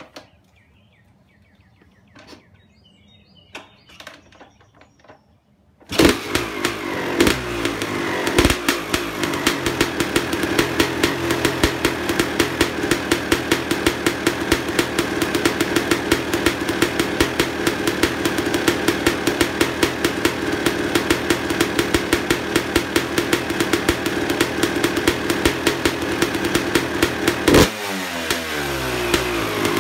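Suzuki RM250 two-stroke dirt bike with an FMF Shorty silencer. The engine starts abruptly about six seconds in after a few quiet seconds with faint clicks, then runs loud and steady with a fast, even rhythm, its pitch shifting and dropping near the end.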